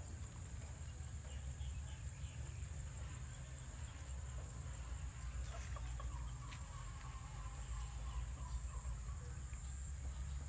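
Chickens clucking, with a drawn-out hen call about six seconds in, over a steady high insect buzz.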